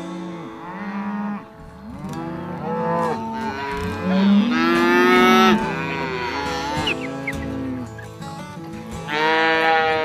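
Herd of cattle mooing, several long calls overlapping, loudest about four to five and a half seconds in and again near the end.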